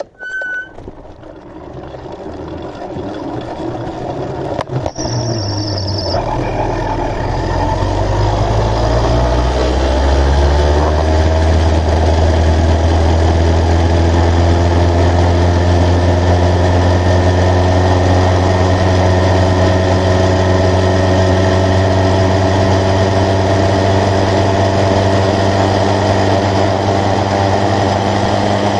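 A short electronic beep at the very start, then an 80cc motorized bicycle engine under way: it accelerates, its pitch and loudness rising over the first ten seconds or so, then runs steadily at speed.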